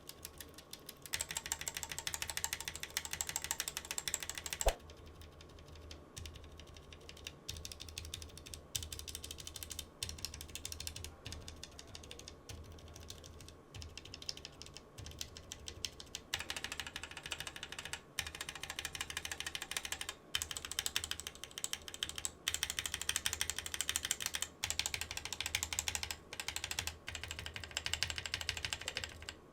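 Typing on a Drop Carina keyboard fitted with factory-lubed Gateron Cap Yellow linear switches and pudding keycaps. There are fast runs of keystrokes near the start and through the last third, with slower, separate key presses in the middle.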